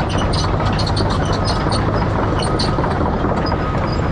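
Motorcycle engine running at a steady cruise under wind and road noise, with quick light clicks sounding over it.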